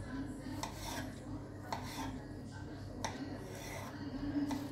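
A kitchen knife slicing through ripe mango flesh and tapping onto a plastic cutting board, in a series of irregular short strokes over a steady low hum.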